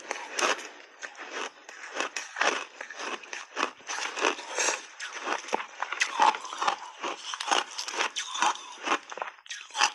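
Crunchy white block ice being bitten and chewed, an irregular run of sharp crunches and crackles, about two to three a second.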